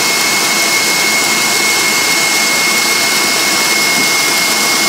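Electric mixer running at speed, whisking egg whites and sugar into meringue: a steady whir with a constant high whine.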